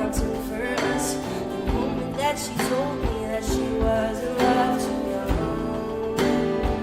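A live pop song: a male voice singing over instrumental backing with a steady beat.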